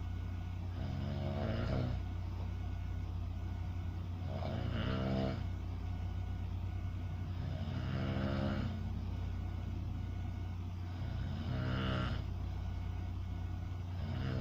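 A sleeping person snoring in a slow, regular rhythm: four rough, pitched snores about every three and a half seconds, with another starting near the end. A steady low hum runs underneath.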